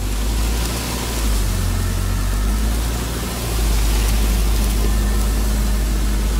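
ATV engine running steadily as the quad is driven slowly through dense dry reeds, with the stalks swishing against the machine; the engine gets louder about three and a half seconds in.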